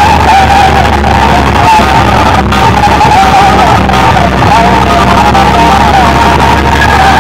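Very loud DJ remix music blasting from a competition sound system: a wall of bass speaker boxes and horn speakers. A heavy steady bass runs under a wavering high melody line.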